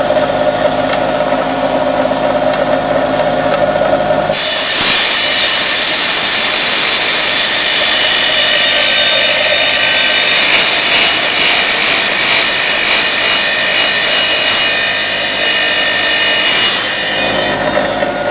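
Wet tile saw running, its motor giving a steady whine; about four seconds in the blade starts cutting through a piece of tile with a loud, high-pitched grinding hiss that lasts until near the end, when the saw goes back to running freely.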